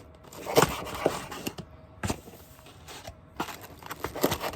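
A knife cutting through toasted sourdough cheese sandwiches: the crisp crust crunches and scrapes in several separate strokes, the blade knocking the board with each cut.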